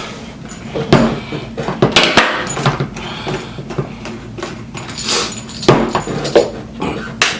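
Things being pulled out of packaging by hand: irregular knocks, clicks and rustling, with a few louder scraping stretches.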